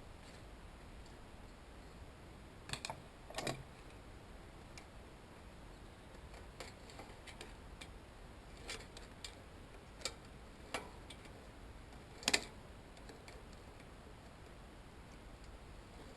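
Scattered light metallic clicks and taps from hand tools working on a bicycle's pedal and bearing parts, about eight in all, with a double click around three seconds in and the loudest about twelve seconds in.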